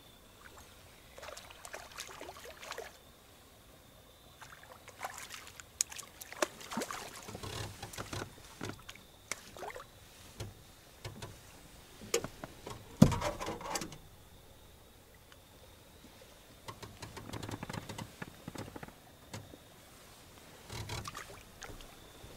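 Irregular knocks, clicks and clatter of someone moving about and handling gear in a small fishing boat, in scattered bunches with one sharp knock about halfway through.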